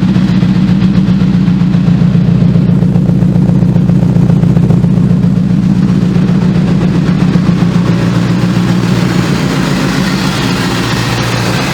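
Supercharged V8 engine of a 2002 Ford F-150 SVT Lightning running steadily through a Bassani X-pipe and cat-back exhaust, its tone shifting slightly near the end.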